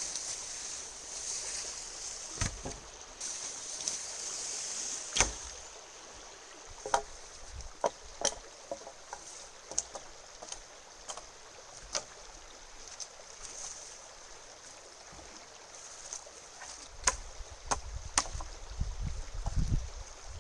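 River water running steadily beside the mic, with scattered sharp knocks and clicks at irregular intervals, the loudest about five seconds in. A low rumble comes in near the end.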